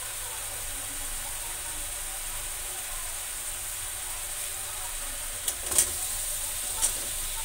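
Masala sizzling steadily in an iron kadai over a gas flame. About five and a half seconds in, three sharp clattering knocks come as cubed potatoes are tipped into the pan from a steel plate.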